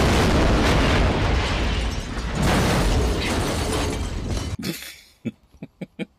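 Film explosion sound effects: a loud, continuous blast that surges again about two and a half seconds in and fades out after about four and a half seconds.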